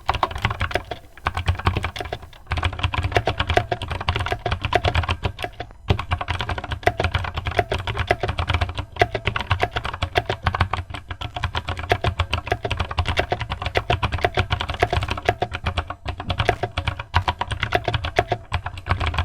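Fast typing on a Havit mechanical keyboard with blue Outemu switches: a dense run of loud, sharp clicks from the clicky tactile switches, with a few brief pauses.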